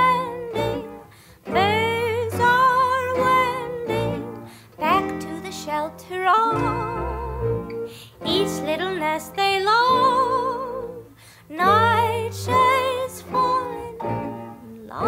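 Background music: a woman singing phrases with strong vibrato over plucked guitar.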